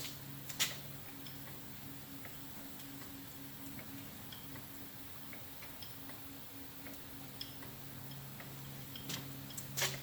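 Model steam engine and its gas-fired boiler running: a steady low hum with a fast, even pulse and light scattered ticking, broken by a few sharp clicks.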